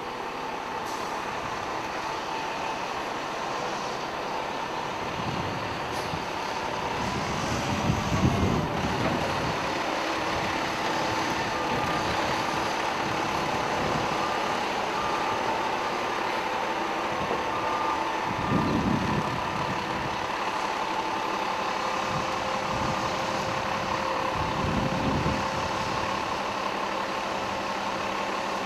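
Diesel engine of an FDNY tower ladder fire truck running as the rig manoeuvres, with three louder surges of engine revving and a reversing alarm beeping.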